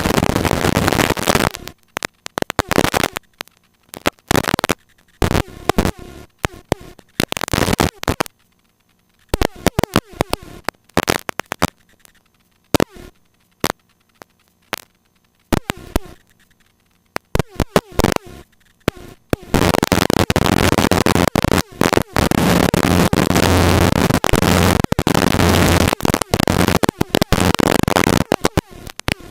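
Helicopter in flight: loud rushing cabin and wind noise on the microphone. It cuts in and out in choppy bursts with short dropouts, then runs steadily from about two-thirds of the way through.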